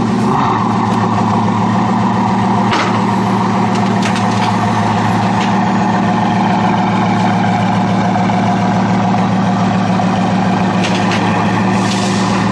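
Bugatti Veyron Super Sport's quad-turbocharged 8.0-litre W16 engine idling steadily.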